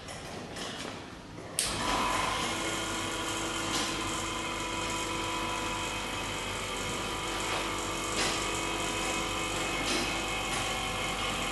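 Vacuum pump switching on about a second and a half in, then running steadily with a mechanical whine and hum as it evacuates the chamber.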